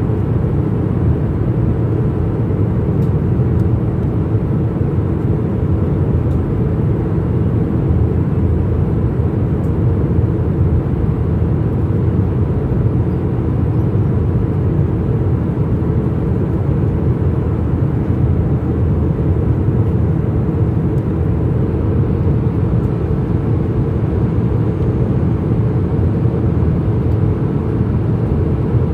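Steady drone of a jet airliner heard from inside the passenger cabin: a low rumble of engines and airflow with a faint steady hum, unchanging throughout.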